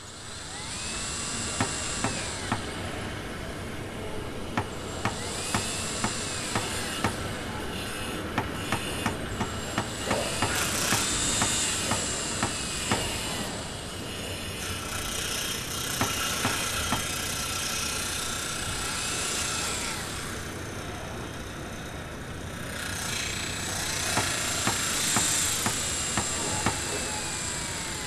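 Construction-site soundscape. A power drill repeatedly spins up and winds down with a rising then falling whine, and sharp tool impacts come singly and in quick runs of several, over a steady bed of machinery noise.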